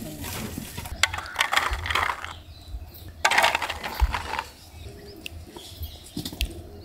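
Handling noise while a gift is unwrapped: crinkling of wrapping and light clinks and clicks, in two busy bursts about one and three seconds in, then a few scattered ticks.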